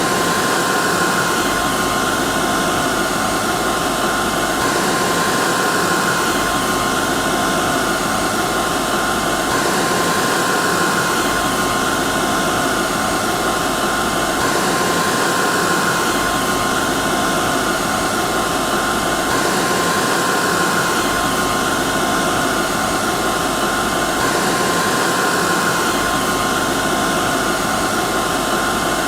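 Hair dryer running steadily: a dense, even rush of air with a steady high whine from the motor. The sound is a loop that repeats about every five seconds.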